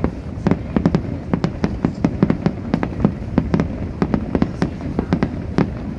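Aerial fireworks display going off in rapid, irregular succession, several sharp bangs a second over a continuous low rumble.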